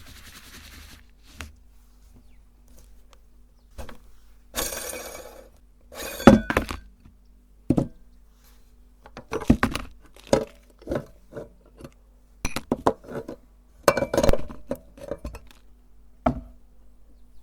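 Irregular clinks and knocks of hard objects being handled against metal or glass, with a short rustling burst about five seconds in.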